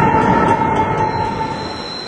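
Container freight train's wagons rolling past close by, with a steady high-pitched wheel squeal over the rolling noise; the squeal fades out about one and a half seconds in as the whole sound drops in level.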